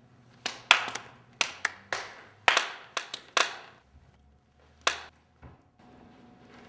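Sparse applause from a small audience: about a dozen separate sharp claps over roughly three seconds, then one last clap about five seconds in.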